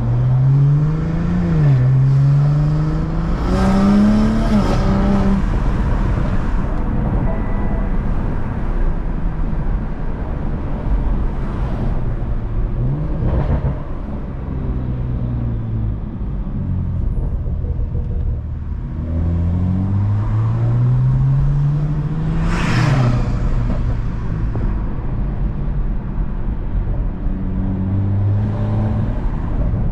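BMW M340i's 3.0-litre turbocharged inline-six heard from inside the cabin, pulling through the gears: the engine note rises in pitch, drops back at each upshift and climbs again, with quieter cruising stretches between the pulls. Two short noisy bursts come at shifts, about four seconds in and again about two-thirds of the way through.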